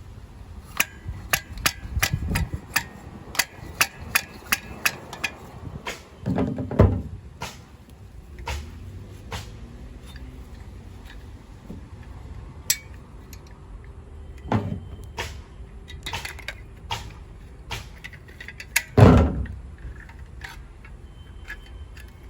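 Irregular sharp clicks and taps from handling tools and plastic water-tank parts, with two heavier knocks, one about seven seconds in and a louder one near 19 seconds.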